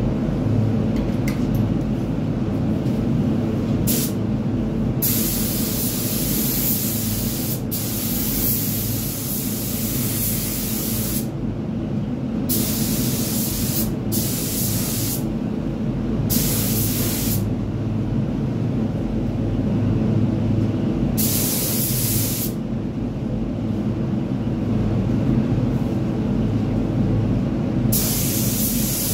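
Gravity-feed paint spray gun hissing in about eight separate passes of one to three seconds each, every burst starting and cutting off sharply as the trigger is pulled and released, over a steady low rumble.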